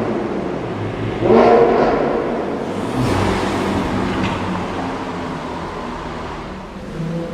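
Supercar engine accelerating hard: a sudden surge in engine note a little over a second in that then fades away, a smaller surge about three seconds in, and a low rumble tailing off.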